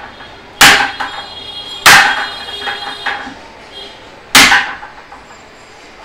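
Pliers striking a screwdriver wedged in a mixer grinder's threaded motor coupler: three sharp metallic blows with a short ring after each, knocking the coupler clockwise to unscrew it. The coupler is jammed and does not give.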